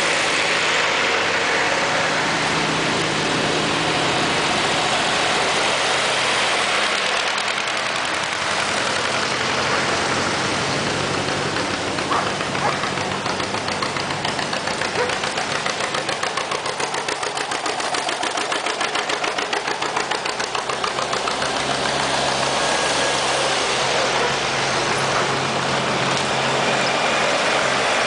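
Farm tractor engines running as a line of tractors drives past. From about 12 to 20 seconds, a vintage John Deere two-cylinder tractor passing close gives a rapid, even exhaust beat.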